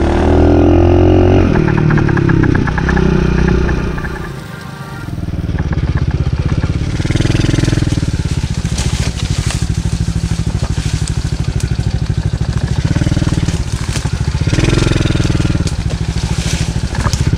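A Taotao DB14 110cc single-cylinder four-stroke dirt bike engine being ridden under throttle. The revs fall in the first second or so, the engine eases off and quietens about four seconds in, then picks up again and runs on with repeated surges of throttle.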